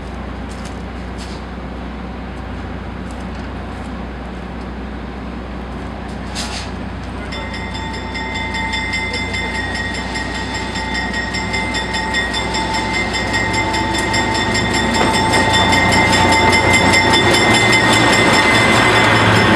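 White Pass & Yukon shovel-nose diesel locomotives approaching slowly and drawing past close by, their engine hum growing steadily louder. From about seven seconds in, a steady high metallic squeal and a fine rattle from the running gear join in and build as the units go by.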